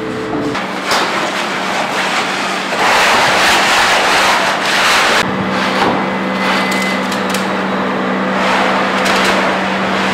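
Concrete pump running with a steady engine hum, under loud surges of rushing, scraping noise as wet concrete comes through the hose and is spread over the floor. The rushing is loudest from about three to five seconds in, and the hum grows stronger about halfway through.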